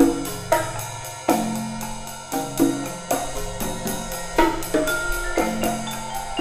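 Live percussion trio playing a swing tune: low marimba notes carry the bass line under sharp drum strokes and high mallet-struck notes, in a steady rhythm.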